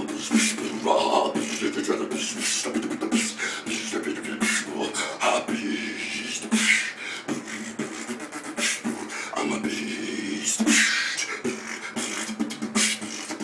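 Solo beatboxing by a man: a fast, dense stream of mouth-made kick, snare and hissing hi-hat sounds over a low held tone.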